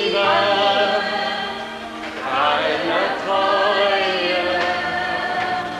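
Music: a choir singing long held notes, in two phrases with a short dip in level about two seconds in.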